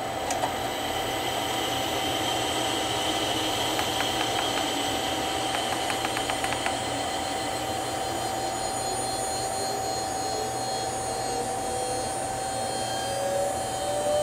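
A one-horsepower three-phase mill motor, fed by a variable frequency drive that has not yet been programmed, gives a steady electrical whine. Quick keypad clicks come about four to six seconds in. Near the end a second tone starts rising in pitch.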